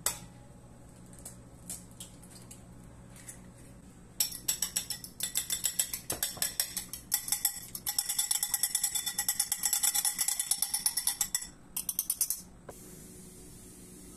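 An egg is knocked open on a porcelain bowl with one sharp crack, followed by a few light taps. From about four seconds in, a fork beats the egg in the bowl: fast, rhythmic clinking of metal on china that stops shortly before the end.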